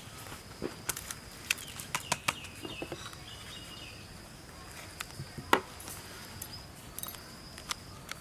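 Fresh banana leaves crackling and rustling as they are handled and folded into a cone, with sharp little crackles scattered throughout and the loudest one a little past halfway.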